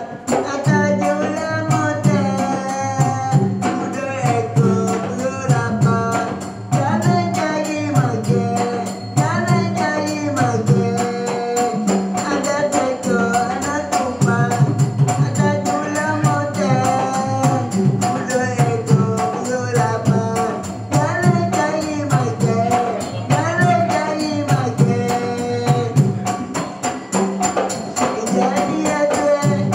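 Traditional Malay wayang kulit ensemble music: a wavering, bending melody line over fast, steady drumming and jingling small cymbals, with a repeating pattern of low drum notes.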